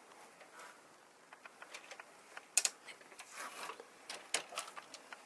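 Scattered small plastic clicks and taps with a brief rustle, from batteries being fitted into a toy radio-controlled jeep. The sharpest is a double click about two and a half seconds in.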